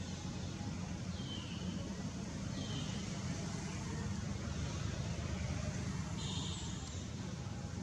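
Steady low outdoor rumble, with three brief high chirps: about a second in, just under three seconds in, and a longer one about six seconds in.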